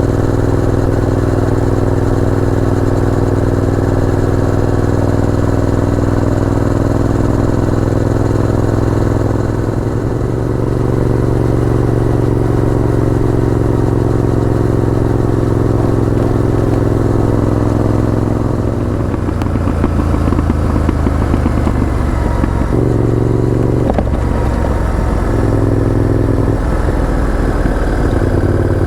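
Honda VTR1000F's 996 cc V-twin engine running under way, holding steady revs for most of the stretch. In the last third the engine note drops and changes in steps several times as the revs rise and fall.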